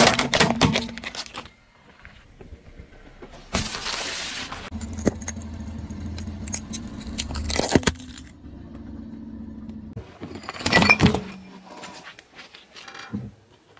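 A car tyre rolling over small objects and crushing them, in a string of short clips that cut abruptly: bursts of crackling and crunching, a single sharp crack, and the car's engine running low in between.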